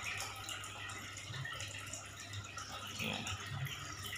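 Light splashing and trickling of water at the surface of a goldfish tank, with many small drip-like ticks, over a steady low hum.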